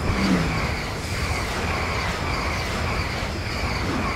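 E6 series Shinkansen train passing close by at speed on snowy track: a loud, steady rush of wheels on rail and moving air. It starts suddenly as the train draws level and dies away near the end as the last car clears.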